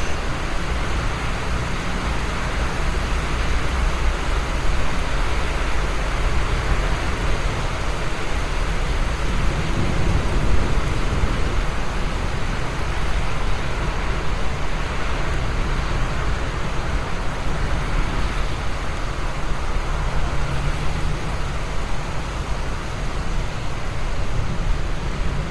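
Steady rain: an even, unbroken hiss of falling drops with a low rumble underneath.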